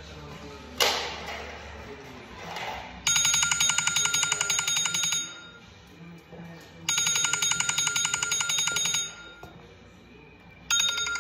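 A telephone ringing with a trilling electronic ring, about two seconds on and a little under two seconds off, ringing three times, the third starting near the end. A sharp knock comes about a second in.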